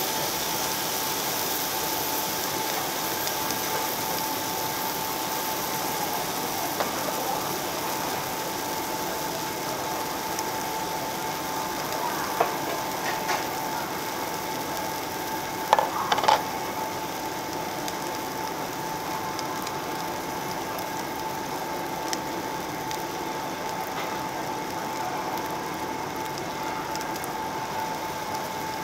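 Pork belly sizzling and crackling steadily on a tabletop Korean barbecue grill plate, with a few sharp clicks about twelve and sixteen seconds in.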